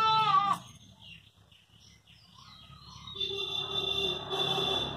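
Cat yowling: a loud, steady-pitched cry at the start that breaks off about half a second in, then, after a quiet gap, a longer two-part cry from about three seconds in until near the end.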